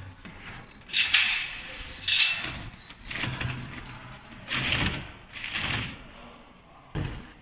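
Machine parts being handled during disassembly: a series of about six short scraping and clattering sounds, unevenly spaced.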